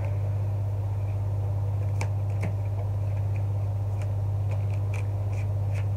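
A deck of tarot cards being shuffled by hand, giving a few short card clicks and snaps from about two seconds in. A steady low hum runs underneath and is the loudest sound.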